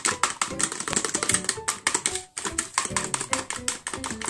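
Metal fork beating eggs in a plastic container, rapid clicking and tapping as the tines strike the container's sides and bottom. Background music plays underneath.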